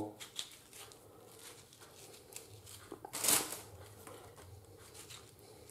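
Serrated knife peeling and cutting a ripe tomato by hand: faint small scrapes and ticks of the blade through the skin, with one brief louder crinkling rustle about three seconds in.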